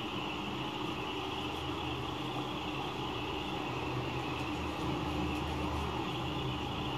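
Steady low hum with a hiss, unchanging throughout.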